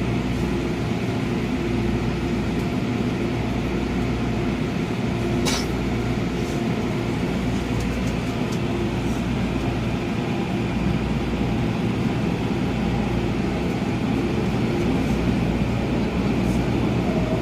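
MTR 'A-train' (Adtranz-CAF electric multiple unit) running along the line: a steady rumble of wheels and traction equipment with a constant low hum. There is one sharp click about five and a half seconds in.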